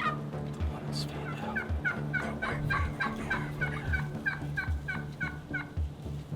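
Merriam's wild turkey gobblers gobbling: a string of quick, falling, rattling notes from about a second in to near the end, over background music with a steady beat.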